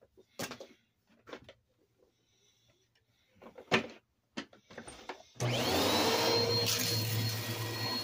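A few scattered knocks and clicks, the loudest near the middle, then about five seconds in an upright bagless vacuum cleaner switches on: its motor whines up quickly and settles into a loud, steady run.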